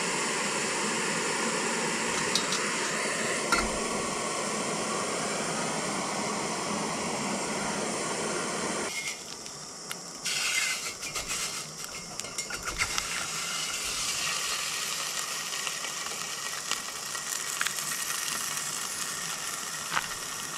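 A Coleman canister camp stove's burner hisses steadily for about nine seconds. Then the sound drops as a pot is set over the flame, and turkey sausage squeezed into the hot pot starts sizzling, with a few light clinks.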